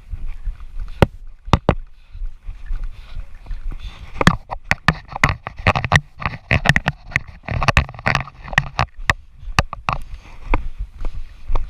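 Airsoft guns firing: irregular sharp cracks, a few at first, then crowding thickly together from about four seconds in until near the end, over a low rumbling noise.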